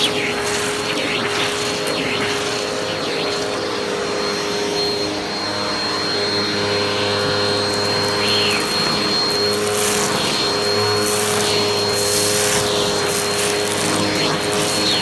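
Vacuum cleaner running steadily, a motor hum with a high whine, as its hose nozzle is worked over shag carpet and sucks up scattered debris, which crackles and rattles into the nozzle, most thickly in the second half.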